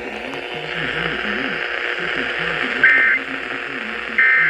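Emergency Alert System end-of-message data tones over a radio receiver: short, loud, buzzy screeches of the SAME digital code, about a second and a half apart, marking the end of a relayed warning. A steady radio hiss runs underneath.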